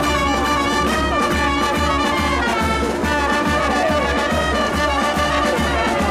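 Brass band playing a tune over a steady beat.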